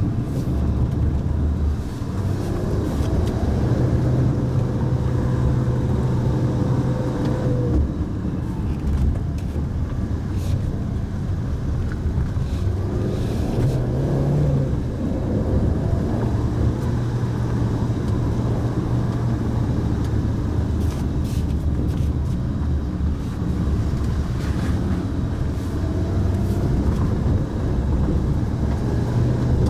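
Mitsubishi Pajero Mini driving, heard from inside the cabin: a steady engine hum whose pitch shifts now and then with speed, under continuous tyre and road noise, with a few faint ticks.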